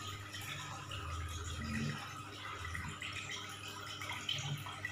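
Steady bubbling and trickling of water from a goldfish aquarium's aeration.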